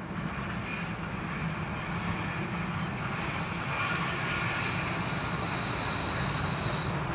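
Electric locomotive hauling a freight train on approach: a steady drone that grows a little louder, with a thin high whine that fades out near the end.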